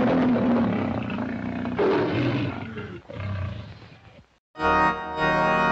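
Three rough roars about two seconds apart, each fading away, in the manner of the film-studio logo lion's roar. After a brief silence, a sustained organ-like music chord begins about four and a half seconds in.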